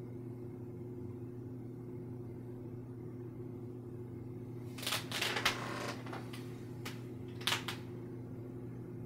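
A steady low hum, with about a second of rapid clicking and scraping about five seconds in, then a few separate sharp clicks.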